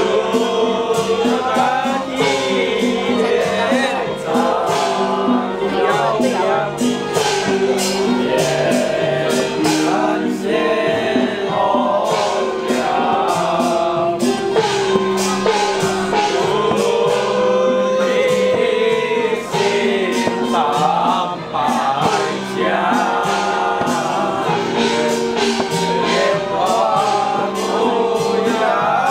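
Music: a melody with sliding notes over quick, steady percussion strikes.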